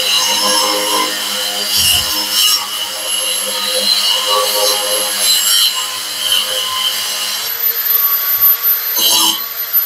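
Electric wall chaser cutting a groove into a masonry wall: a steady, gritty grinding with the motor running under it. The sound shifts about seven and a half seconds in, and there is a short louder burst around nine seconds.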